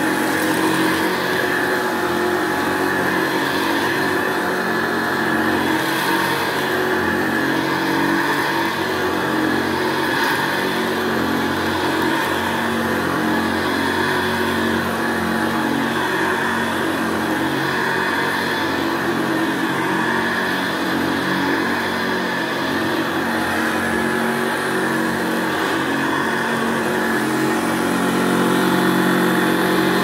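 Hoover Senior 652A upright vacuum cleaner running steadily on a carpet, its motor giving a smooth hum over the rush of suction, getting slightly louder near the end.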